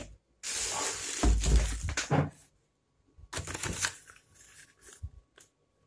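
Plastic wrapping crinkling and rustling as a packed rice cooker is handled and lifted out of its cardboard box, with a dull thump about a second and a half in. A second, shorter rustle follows a little after three seconds, then a few light clicks.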